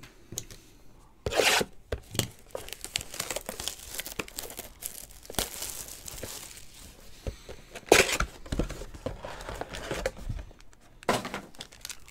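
Wrapping being torn and crinkled off a sealed Panini Certified football card box, in irregular tearing and crackling strokes with sharp loud rips about a second and a half in and about eight seconds in, then the box's foil card packs handled.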